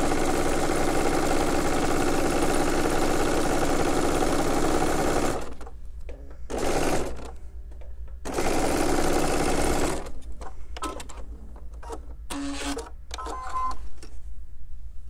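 Sewing machine stitching a quilt seam in three runs: a long steady run of about five seconds, a short burst, then another run of about two seconds. A few light clicks and rattles follow near the end.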